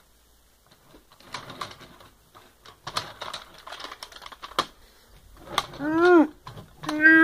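Hard plastic toy robot figures clicking and clattering as they are handled and set on a wooden desk. Near the end, two short hums that rise and fall in pitch are louder than the clicking.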